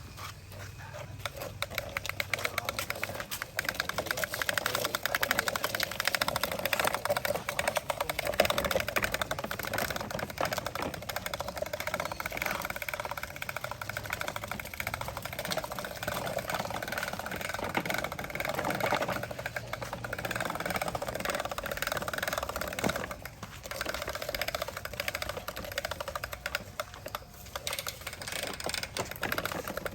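Small toy construction vehicle's electric motor and plastic gears running, a fast rattly clicking like a sewing machine.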